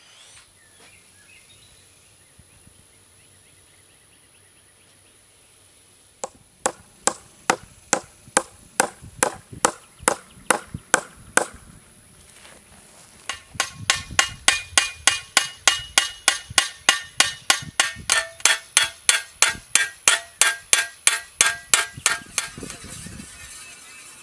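Hammer peening a scythe blade's edge on a small hand-forged scythe anvil: a run of sharp, even metal-on-metal taps starts several seconds in. After a short pause comes a faster, longer run of ringing taps, the steel blade singing under each blow.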